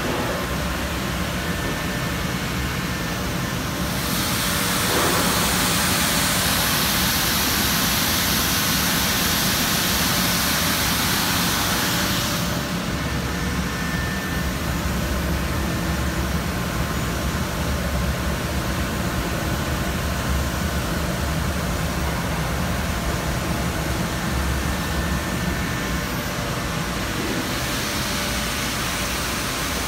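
Automatic deburring machine running steadily, with its rotating brush heads spinning. A louder, high hiss swells about four seconds in and falls back after about eight seconds.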